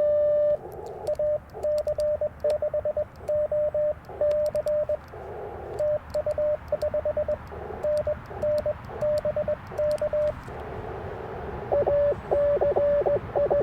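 Morse code (CW) tones near 600 Hz from an Icom IC-705 transceiver as another station keys up. It opens with a held steady tone, then runs in dots and dashes with band hiss swelling between characters. Near the end comes a louder, cleaner run of keying.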